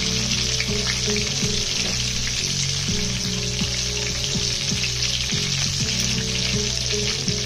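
Breaded thin turkey cutlets shallow-frying in hot oil in a skillet: a steady, dense sizzle and crackle of bubbling oil.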